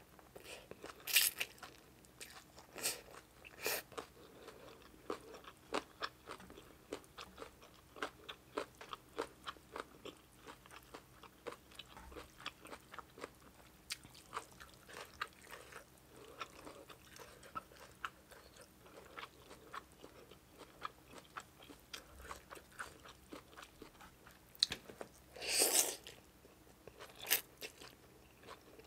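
Close-up mouth sounds of a person eating green papaya salad with rice noodles and fermented pork by hand: a steady run of irregular wet crunches, clicks and chewing, with a louder, longer rush of sound about 25 seconds in.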